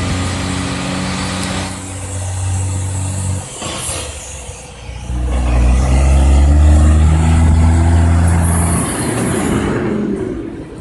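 Heavy diesel engine of a road-works truck or machine running, growing louder about five seconds in and falling away near the end. A short high hiss comes near the end.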